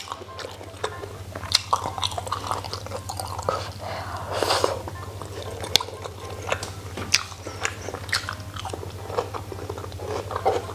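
Close-miked chewing and mouth sounds of someone eating rice, with frequent sharp clicks of chopsticks against a metal bowl, over a steady low hum.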